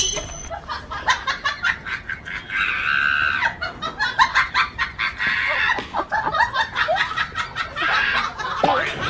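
Young puppies yapping and whining at a rooster they are confronting: a rapid run of short high yips, with a longer call about a third of the way in and another near the end.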